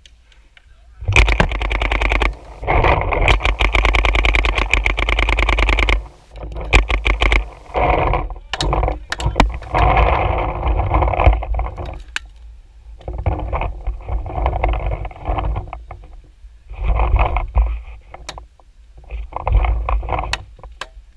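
Paintball markers firing rapidly: a long unbroken string of shots lasting about five seconds, then several shorter bursts.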